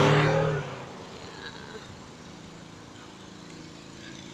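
Street traffic noise with a low, steady vehicle engine hum. A louder sound carried in from just before cuts off about half a second in, leaving the faint street sound.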